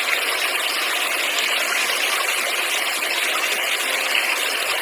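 Steady rush of a flowing river, with nothing in the low end.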